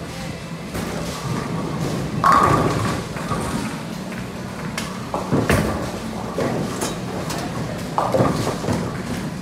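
Bowling-alley din: a thrown bowling ball rolling down the lane and striking the pins about two seconds in, the loudest moment, followed by further thuds and pin clatter from neighbouring lanes.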